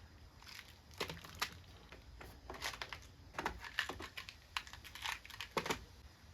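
Handling of a rivet nut tool kit's case and small parts: scattered light clicks, taps and rustles, irregular and a few a second.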